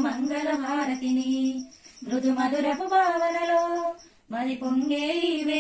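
A woman's voice singing a slow devotional song during aarti, held notes in phrases broken by two short pauses.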